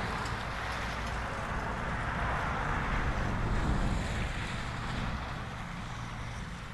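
Wind buffeting the microphone, a steady rushing with a low rumble that swells about halfway through and eases off near the end.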